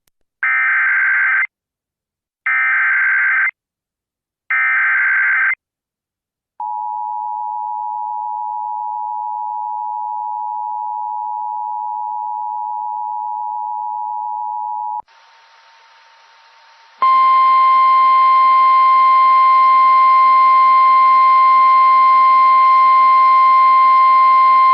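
Emergency Alert System tones. Three harsh data bursts, about a second each and a second apart, make up the SAME header. Then comes the steady two-tone EAS attention signal for about eight seconds, a short hiss, and from about halfway through a loud, steady single-tone weather radio warning alarm with a buzzy edge.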